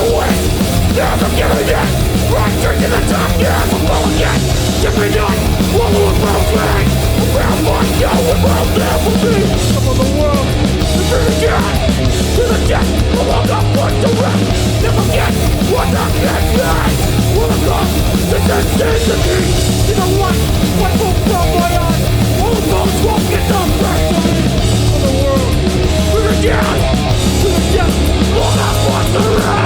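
Hardcore punk band playing live at full volume: distorted electric guitar, bass and pounding drums, with shouted vocals.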